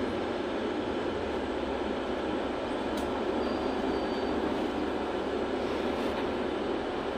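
Steady cabin noise inside a LiAZ 6213.65 articulated city bus, its engine and running gear humming evenly, with one brief click about three seconds in.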